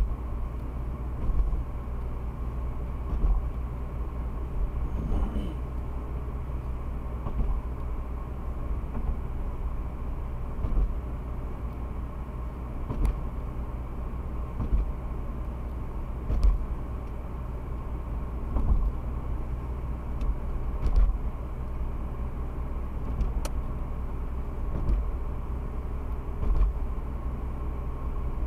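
Steady low tyre and road rumble of a car driving at speed, heard from inside the cabin, with a dull thump every couple of seconds.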